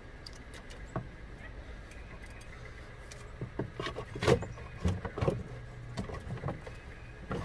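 Ribbed rubber serpentine belt being pulled off the engine's pulleys by hand: one light knock about a second in, then a run of irregular knocks and rubbing as the belt drags over the pulleys and engine parts.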